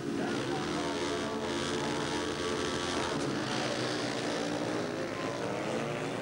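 Four 500cc single-cylinder speedway motorcycles revving hard together as they leave the start gate and accelerate into the first bend, their engines overlapping in a dense, steady drone.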